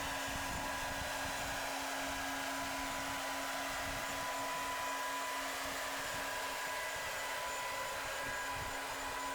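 Steady mechanical whir with a constant low hum and a few faint high tones, unchanging throughout.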